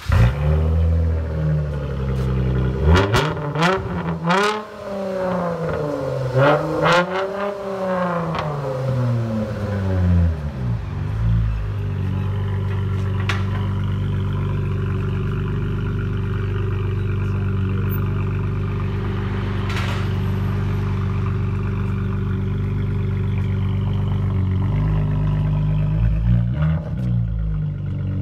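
2012 Dodge Charger's 3.6-litre V6 with the resonator and both mufflers deleted (straight pipes, factory catalytic converters kept) and running loud. It is blipped through several quick revs, each rising and falling, settles to a steady idle after about ten seconds, and is revved again near the end.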